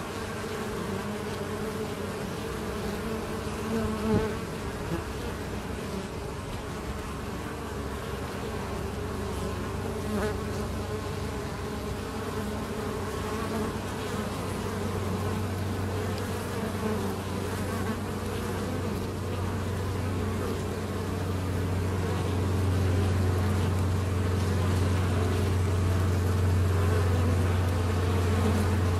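Honeybees buzzing in flight at a hive entrance, many at once, as foragers come and go: a steady, dense drone. About halfway through, a low steady hum comes in beneath the buzzing and grows louder toward the end.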